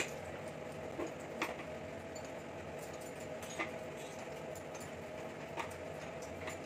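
Spoon and small steel bowl clinking against a stainless-steel mixer-grinder jar, about six short sharp taps spread out, as spinach is scraped in and water is added for grinding into a purée. A steady low hum runs underneath.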